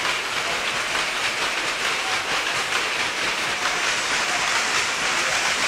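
Towel-weaving loom running, with a fast, steady mechanical clatter.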